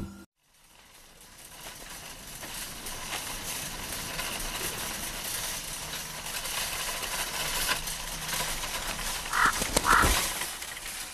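Steady, noisy outdoor ambience in open desert, with two short squeaks near the end.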